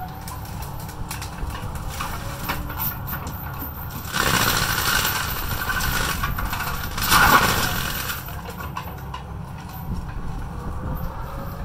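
Kobelco 140 excavator's diesel engine running with a steady low rumble while its cutting head works at trees, getting louder in two stretches about four and seven seconds in.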